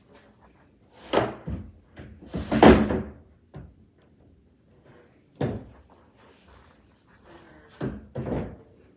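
Heavy wooden dining table sections being pushed and knocked together during assembly: a run of thumps and knocks, the loudest and longest about three seconds in, two more close together near the end.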